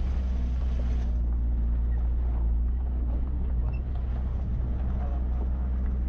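A vehicle driving along a gravel dirt road: its engine runs at a steady pitch under a continuous low rumble of tyres on the rough surface.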